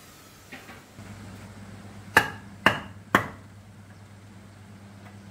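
Three sharp hammer blows on a piece of wood, about half a second apart, over the low steady hum of an electric fan.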